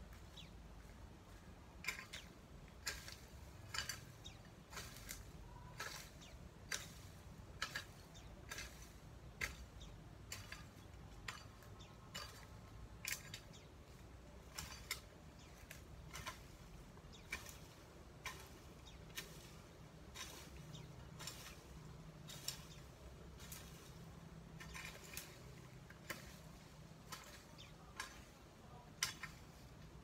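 Long-handled garden tool chopping and scraping into soil and weeds in irregular strokes, about one or two sharp hits a second.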